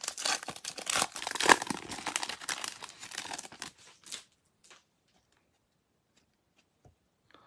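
A Panini Prizm Draft Picks baseball card pack being torn open by hand, its wrapper rustling and crackling densely. The rustling stops about four seconds in, leaving a few faint ticks as the cards come out.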